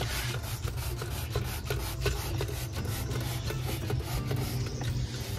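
Scouring pad scrubbing a stained washing-machine part by hand, in repeated rough back-and-forth strokes.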